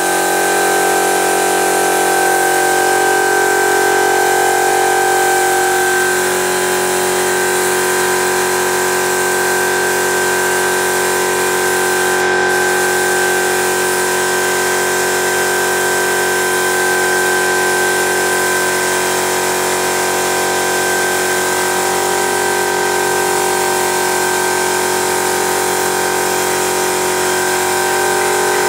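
Paint spraying machine running steadily: a motor's constant hum under the hiss of paint spraying from the hand-held gun.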